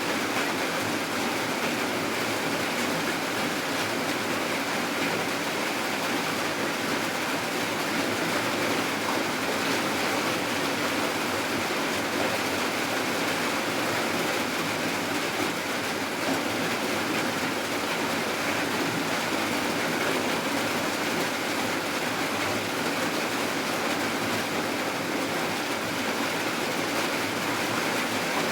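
Steady rain falling at night: an even, unbroken hiss with no drops or thunder standing out.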